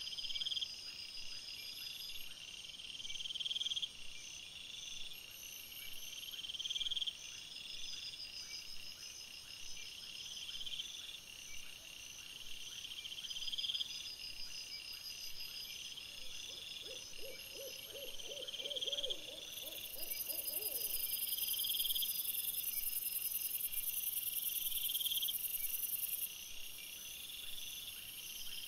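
Night insect chorus of crickets chirping in steady, repeating pulsed phrases, louder for several seconds past the middle. Partway through, a short run of lower, rapidly repeated calls comes in for a few seconds.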